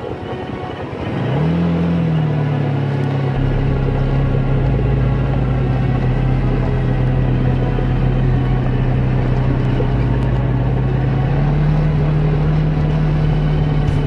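ATV (quad bike) engine running while being ridden over a gravel track: it comes up with a short rev about a second in, then holds a steady drone, rising slightly near the end.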